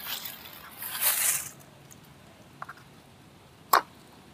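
Two short hissing blasts while brake parts are being cleaned, then a light click and one sharp metallic clink near the end.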